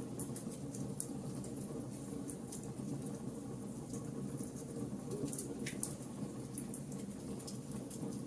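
Wood fire burning in a fireplace: a steady low rush with scattered sharp crackles and pops, two of them louder, about a second in and near six seconds.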